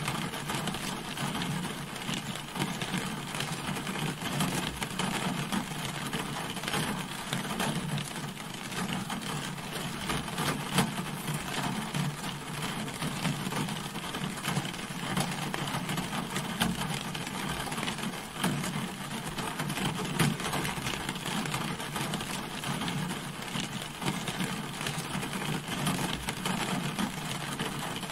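Rain falling steadily on a car, a dense patter of drops with a low hum underneath.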